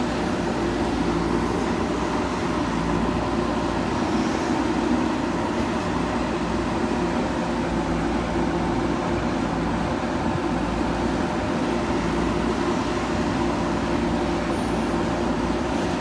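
Diesel engine of a JCB 3DX backhoe loader running steadily at a constant speed.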